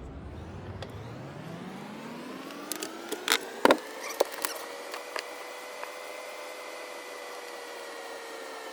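A motor's whine that rises steadily in pitch over about five seconds, levels off and then begins to sink, with a few sharp clicks and crackles between about three and four and a half seconds in.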